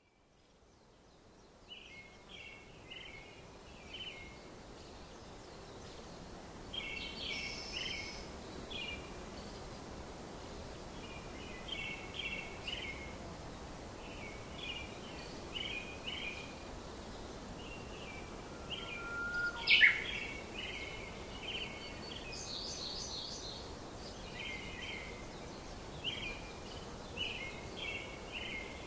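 Small birds chirping in quick clusters of short notes every second or two over a steady background hiss, with one sharp, louder sound about twenty seconds in.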